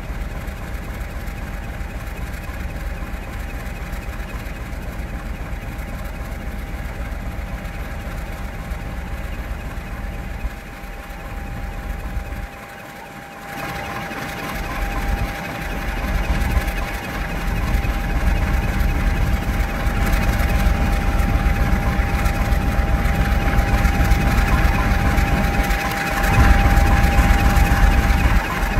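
Class 50 diesel locomotive's 16-cylinder engine running as the locomotive draws slowly up to and alongside the listener. A deep rumble and a steady whining tone grow louder over the second half, loudest near the end.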